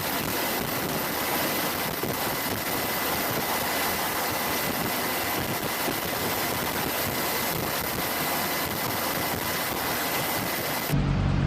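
Military helicopters running: a steady rushing noise of turbines and rotor wash with a thin, steady high whine. Near the end the sound cuts abruptly to a louder, deeper droning hum.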